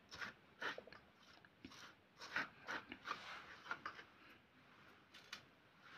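A hand mixing dry flour (maida with salt and ajwain) in a steel bowl: faint, irregular soft brushing and scraping strokes.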